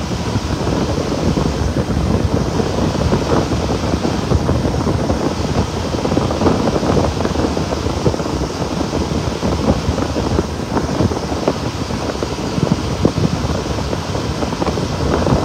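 Wind buffeting the microphone of a moving boat, with the steady drone of the boat's motor and water noise beneath it.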